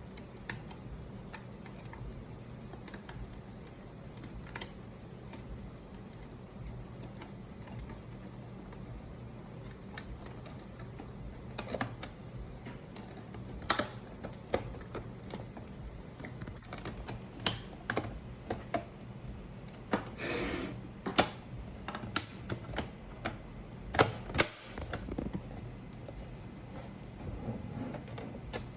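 Irregular clicks and knocks of plastic and metal parts being handled while a UPS is opened for a battery replacement, sparse at first and busier and louder in the second half, with a brief rustle. A steady low hum lies under it.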